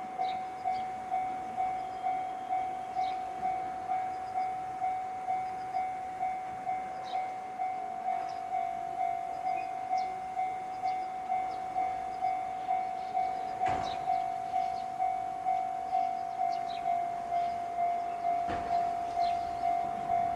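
Japanese railway level-crossing warning bell, electronic, with the JR East Tōhoku-type tone, ringing steadily at a little over two strikes a second. Two sharp thumps sound over it, about two-thirds of the way through and again near the end.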